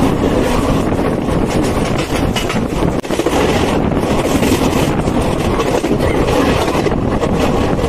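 Passenger train coach running along the track, wheels rumbling on the rails, with wind buffeting the microphone held out of the open doorway. The noise is loud and steady.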